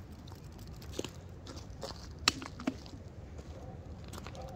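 A coconut being set down on a concrete cinder block: a few light knocks and crunches, with one sharp knock a little past halfway, over steady wind noise on the microphone.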